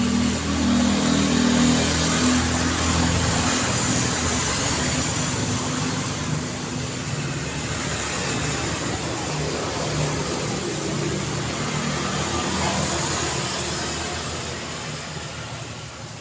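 Road traffic: one vehicle's engine is heard close for the first few seconds, over a steady wash of tyre and engine noise that eases off slightly near the end.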